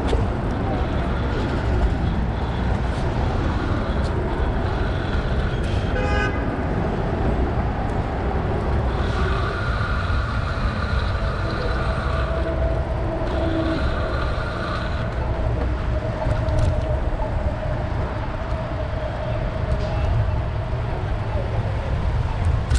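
Street traffic and a steady low wind rumble on the microphone of a moving bicycle, with a vehicle horn sounding twice near the middle, each held for a second or two.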